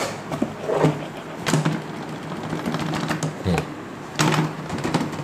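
Blue plastic hard case of a Bosch 108-piece household tool kit being tipped up and moved, with the tools clicking and knocking in their moulded plastic slots in a series of separate knocks, a cluster near the end.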